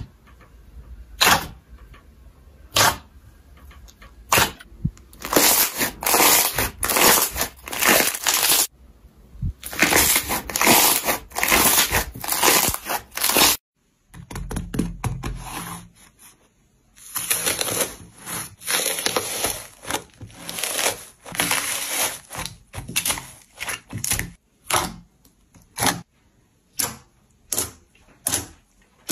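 Slime being squeezed and poked by hand, giving sharp popping clicks and bursts of crackling. The sound breaks off for a moment about halfway through, then the crackling and clicks start again.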